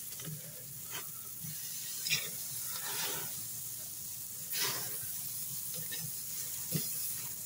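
Picanha and ribeye steaks sizzling steadily on a grill grate over an open fire, with a few short clacks and scrapes of metal tongs as the steaks are turned.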